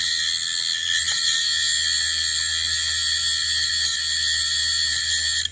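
Small grinding machine's wheel grinding the back side of a CNC V-bit: a loud, steady, high-pitched grinding whine that starts and stops abruptly.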